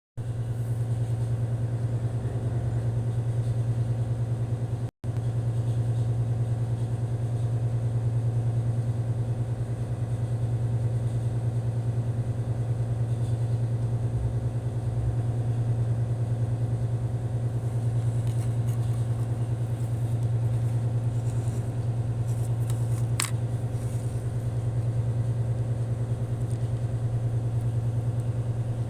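A steady low mechanical drone with an even fine pulse, like a running engine or motor, cut by a brief dropout early on. One short sharp click comes about three-quarters of the way through.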